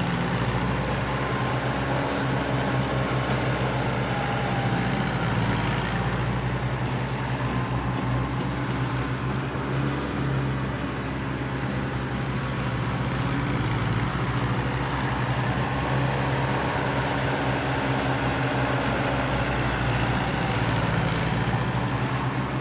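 A large engine running steadily, with a constant low hum.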